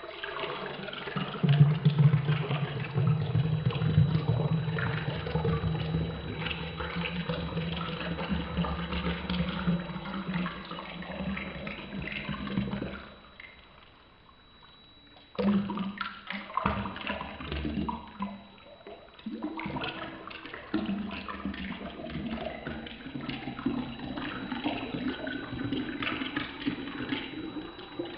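Water pouring and splashing into a tall drinking glass, breaking off for about two seconds midway and then going on.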